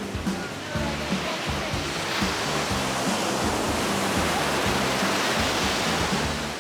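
Ocean surf washing in, a rushing hiss that swells through the middle and cuts off suddenly near the end, over background music with a steady beat.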